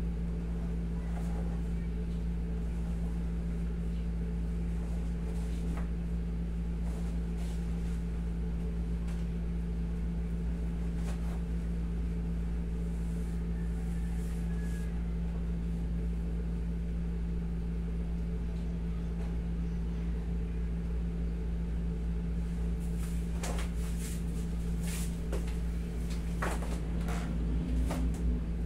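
Steady low hum of a room air conditioner. Near the end come a few short clicks and rustles, the sound of the bandage being handled.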